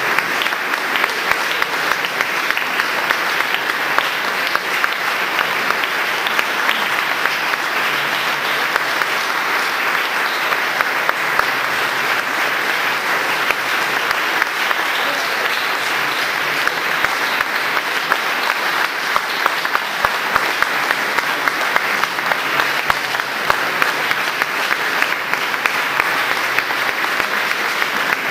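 Concert audience applauding, steady and dense, with no let-up.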